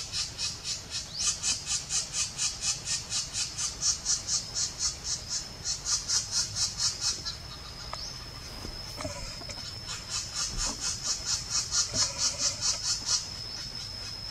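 Black-naped woodpecker nestling begging from its nest hole in a rapid, steady series of high, raspy calls, about three a second. The calls stop about seven seconds in, as an adult reaches the hole to feed it, and start again about ten seconds in. A thin steady high whine runs through the second half.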